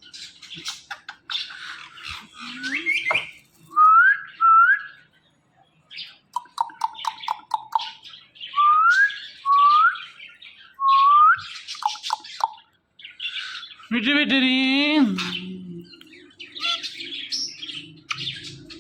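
Ringneck parrot calling: a string of short rising whistles and chirps, with a quick chattering run of notes in the middle. Near the end it says a loud mimicked word.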